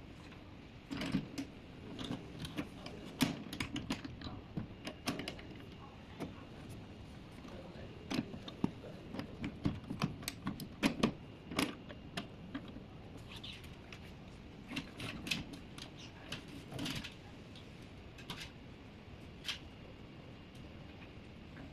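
Irregular metal clicks and knocks from LED display cabinets being locked together by hand: the connecting latches clacking shut and the cabinet frames knocking against each other.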